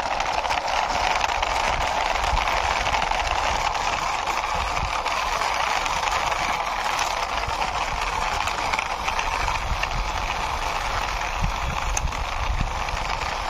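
Plastic wheels of a toy cement mixer truck rolling steadily over rough concrete as it is pushed by hand.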